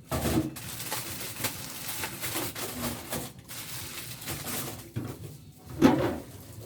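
Frozen food packages in plastic being handled and packed into a freezer: rustling and crinkling with small knocks, and one louder clunk near the end.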